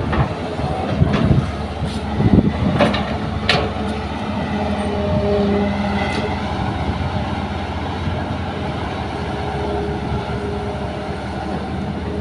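Large tracked hydraulic excavator running steadily as it swings and digs soil to load a dump truck, with a few sharp knocks and clanks in the first few seconds.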